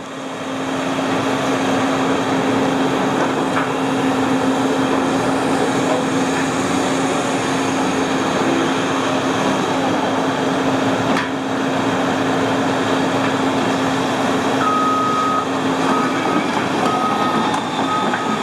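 Diesel engine of a Caterpillar 329E track excavator running steadily under work. Near the end its warning alarm beeps: one long beep, then several shorter ones.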